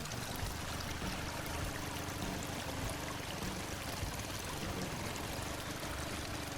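Steady rushing water, like a hose spraying.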